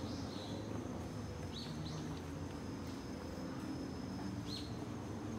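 Woodland ambience: three short bird chirps over a steady high insect drone, with a low steady rumble beneath.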